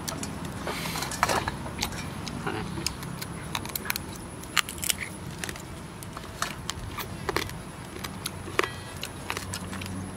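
Irregular small clinks and clicks of a metal spoon and fingers against a stainless steel tray as roasted meat is picked apart. A steady low hum runs underneath.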